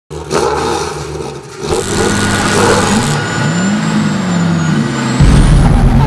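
Car engine revving, its pitch climbing and falling away. A heavy deep boom comes in about five seconds in and the sound gets louder.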